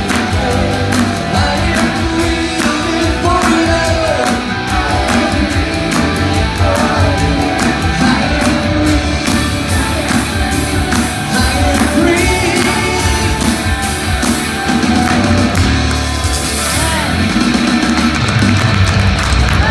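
Live rock-style worship band playing: several singers over drums, electric guitars, bass and keyboard, with regular drum hits.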